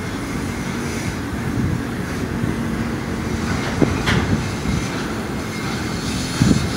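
Double-stack container train's well cars rolling past, a steady low rumble of wheels on rail with a few sharp clanks, the loudest about four seconds in and another near the end.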